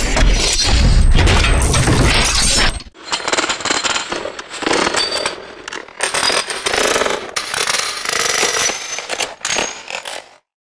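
Chocolate-bar packaging machinery running: a dense clatter of many small clicks and rattles from conveyors, wrapping and cartoning mechanisms, changing abruptly several times as one machine section gives way to the next, then cutting out briefly near the end.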